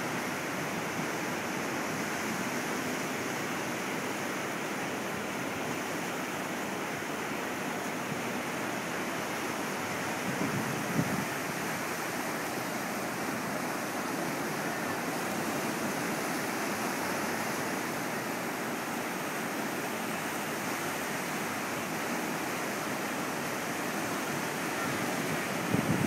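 Atlantic Ocean surf breaking on a sandy beach and around a rock jetty: a steady wash of breaking waves, with a short louder rush about eleven seconds in.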